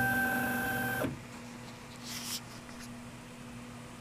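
Prusa 3D printer's stepper motors whining at one steady pitch as the print head moves away from the finished print, stopping sharply about a second in. A faint steady hum remains, with a brief rustle about two seconds in.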